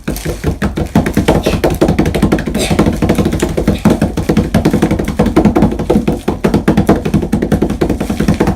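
A drum roll: rapid, continuous drumming strikes that run without a break.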